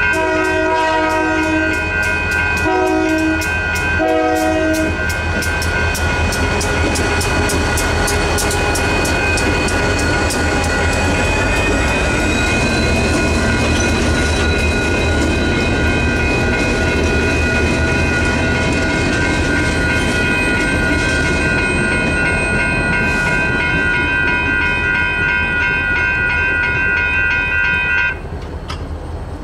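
Union Pacific diesel locomotive sounding its horn in three short blasts at the start, then rumbling through a grade crossing with its train, wheels clattering over the crossing. The crossing bell rings steadily throughout and stops abruptly near the end.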